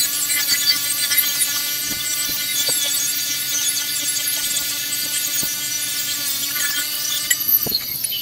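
Bench grinder running with a stainless-steel exhaust tube pressed against its wheel: a steady motor whine under a loud, hissing grind. The grinding eases and a knock is heard shortly before the end.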